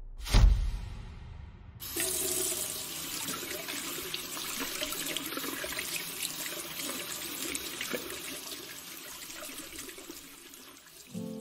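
A sudden thump, then a tap runs steadily into a bathroom sink, the water splashing over hands washed and cupped under the stream.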